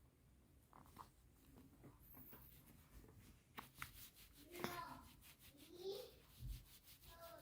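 Near silence with faint clicks and rustles, and two short, faint vocal sounds from a newborn baby, about four and a half and six seconds in.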